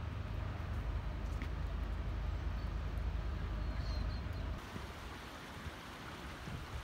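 Outdoor city street ambience: a steady low rumble with an even hiss above it. The rumble drops away about four and a half seconds in, leaving a quieter hiss.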